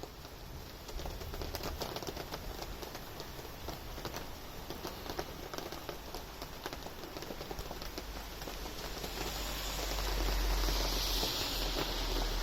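Rain pattering as a dense spatter of small drops, growing louder in the last few seconds with a low rumble underneath.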